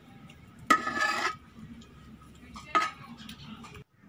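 A metal spoon scraping and knocking against the inside of a metal pot while crushing boiled potato chunks: a longer clattering scrape with a ringing tone about a second in, then a sharp clink near three seconds and a few lighter taps.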